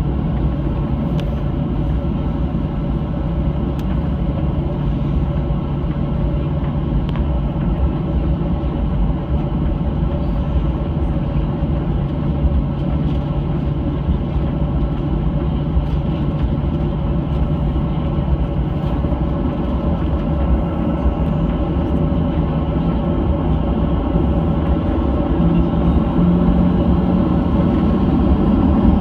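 Cabin noise of a Boeing 737-800 on the ground with its CFM56 engines at idle: a steady rumble with a low hum, growing slightly louder near the end.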